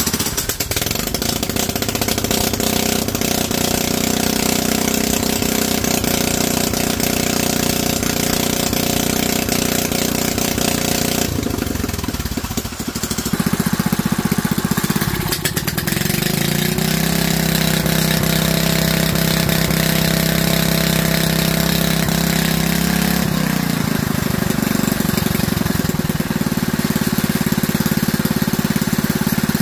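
DuroMax XP7HPE 212cc single-cylinder four-stroke engine running on a homemade go-kart drive train, its speed changing several times: about eleven seconds in, again around fifteen seconds, and once more near twenty-four seconds.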